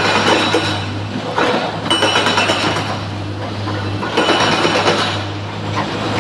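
SANY SY225 hydraulic excavator's diesel engine running with a steady low hum, with three bursts of clattering stone and metal as the bucket dumps and works, near the start, about 2 s in and about 4 s in.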